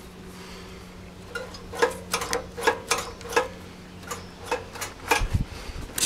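About a dozen sharp, irregular clicks and taps over a faint steady low hum.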